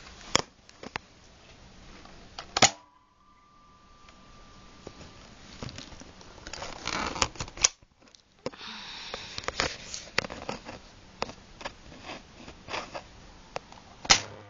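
Handling a Nerf Nitefinder spring-plunger blaster: a few sharp plastic clacks, the loudest about two and a half seconds in and near the end, with rustling and rubbing between them.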